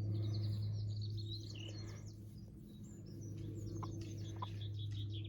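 Small birds chirping in quick high trills, two runs with a short lull between, over a steady low hum.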